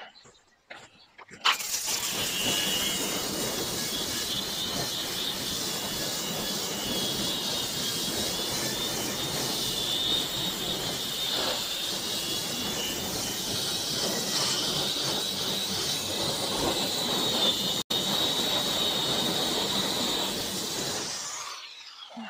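Corded electric polisher with a pad spinning and grinding against the painted steel side of a cabinet to strip the old paint: a steady motor whine over a rough rubbing hiss. It starts about a second and a half in, its whine goes up in pitch about halfway through, and it stops about a second before the end.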